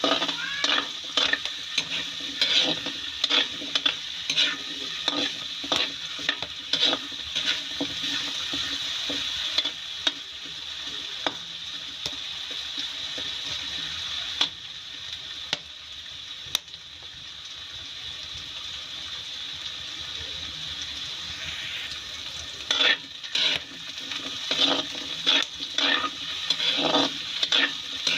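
Cubed potatoes sizzling steadily as they fry in a wide steel wok, with a metal spatula scraping and tossing them against the pan in quick repeated strokes. The stirring stops for about ten seconds in the middle, leaving only the sizzle, and starts again near the end.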